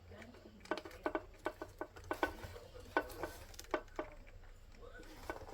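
A quick run of small, sharp clicks and taps as small parts are handled and fiddled with, about a dozen in three seconds, then quieter handling noise.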